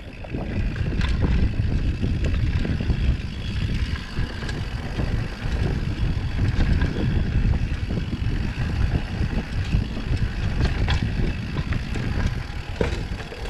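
Mountain bike rolling down a dirt trail: a steady low rumble of tyres over rough ground and wind on the microphone, with scattered small clicks and rattles.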